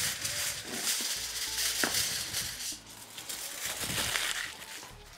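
Crinkling and rustling of a sheet of kitchen wrapping paper being handled and spread out: an irregular crackly rustle that dies down near the end.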